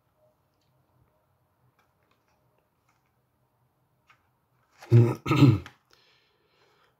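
A man clearing his throat, two quick bursts about five seconds in. Otherwise nearly quiet, with a faint low hum.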